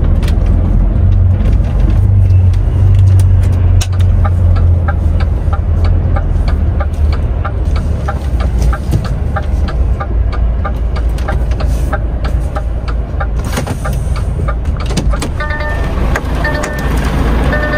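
A DAF XF 510 truck's straight-six diesel engine running steadily under the cab during a slow manoeuvre. A light, fast, regular ticking runs through the middle, and a few short beeping tones come near the end.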